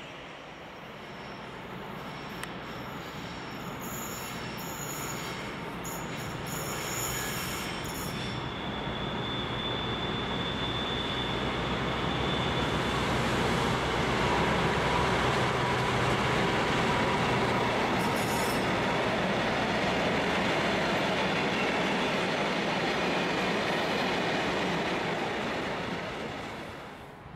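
A DB class 294 diesel locomotive hauling a freight train of hopper wagons approaches and rolls past, growing steadily louder over the first half. The wagon wheels rumble on the rails and squeal thinly at times. The sound drops away sharply just before the end.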